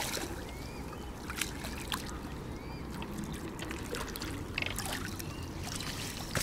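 Lake water splashing and trickling around a landing net as a small carp is netted and lifted from the shallows, with a few scattered knocks and some faint high chirps.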